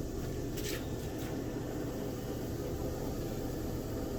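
Steady rushing noise with a low hum from running forge-shop equipment, with a couple of faint light clicks about half a second and a second in.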